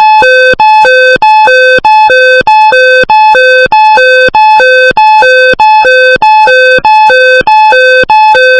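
Loud electronic two-tone alert tone from an emergency alert broadcast, alternating a higher and a lower beep in a steady pattern of about one and a half to two high-low pairs a second, each pair followed by a brief break, cutting off suddenly at the end.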